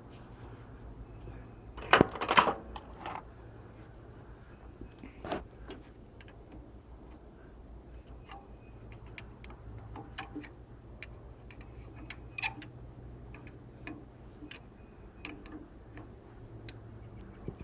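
Small metal tools and tractor parts clinking and tapping during hands-on repair work, with a cluster of louder clanks about two seconds in and scattered light clicks after, over a low steady hum.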